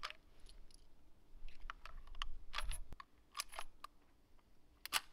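Metallic clicks from the action of an Uberti 1873 Winchester lever-action rifle as .44-40 cartridges are pressed in through its spring-loaded loading gate. There are a handful of sharp clicks about a second apart, the loudest a double click about two and a half seconds in.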